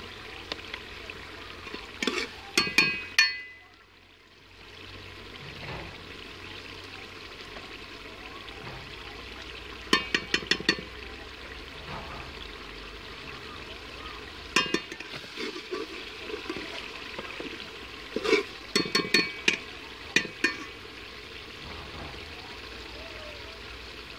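Steady sizzle of potatoes and eggplant frying in oil in an aluminium pot over a wood fire. Short bursts of sharp metal clinks come several times, from a knife and spoon against the containers and pot.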